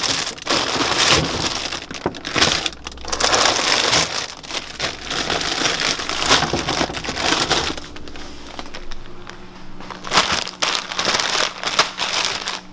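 Clear plastic produce bags crinkling and rustling in irregular bursts as they are rummaged through and lifted out of a refrigerator drawer. A faint steady hum comes in about two-thirds of the way through.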